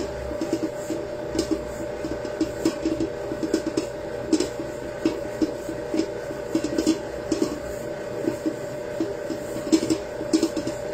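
Electric stand mixer running steadily, its beater working flour, egg yolks, milk and orange juice into a yeast dough in a steel bowl. A constant motor hum, with irregular clicks and knocks from the beater and bowl over it.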